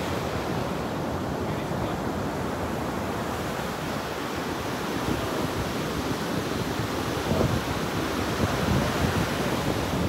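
Surf breaking and washing up onto a sandy beach in a steady rush, with wind buffeting the microphone, gustier in the last few seconds.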